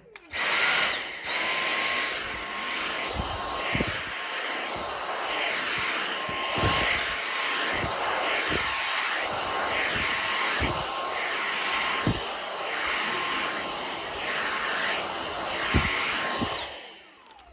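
Dyson V6 Flexi cordless stick vacuum starting up just after the start and running with a steady high motor whine. Soft low thuds come about once a second as the brush head is pushed back and forth over a rug. The motor winds down near the end.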